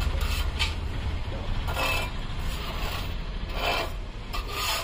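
Several short scraping and rubbing noises over a steady low rumble.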